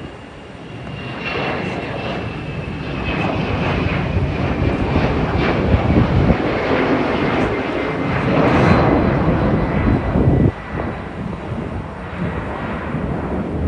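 Embraer 190 jet taking off, its General Electric CF34 turbofans running at takeoff power with a thin whine that slowly falls in pitch. The noise builds over the first few seconds, and a heavy low rumble drops away suddenly about ten and a half seconds in.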